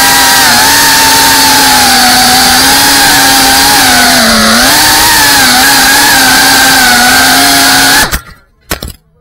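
FPV drone's motors and propellers buzzing loudly with a wavering pitch, heard from the camera on board. About eight seconds in the motors cut out suddenly, followed by a short knock as the drone hits the ground.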